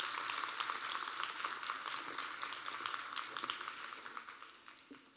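Audience applauding, a dense patter of many hands clapping that fades away over the last second or so.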